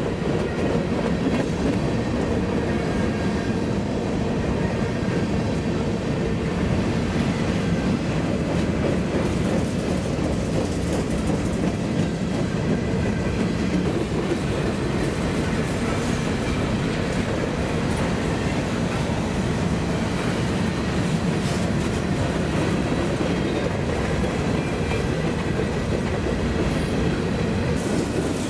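Freight train of covered hopper cars rolling past close by: a steady rumble of steel wheels on rail.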